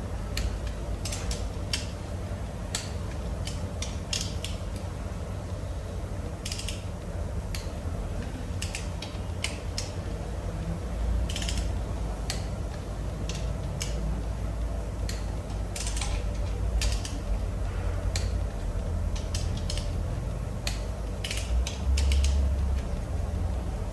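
Hand tools working on engine parts: irregular metallic clicks and ratcheting, some in quick clusters, over a steady low hum.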